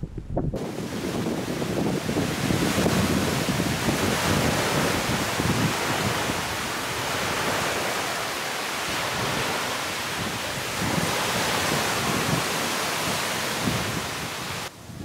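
Wind buffeting the microphone over a steady wash of sea surf. It starts suddenly about half a second in and cuts off just before the end.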